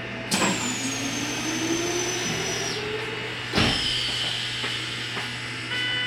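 Keikyu New 1000 series electric train pulling away, heard from inside the car: a high electrical whine sets in suddenly and a low motor tone rises steadily in pitch as the train gathers speed. About three and a half seconds in there is a second jolt and the whine shifts down to a lower steady pitch.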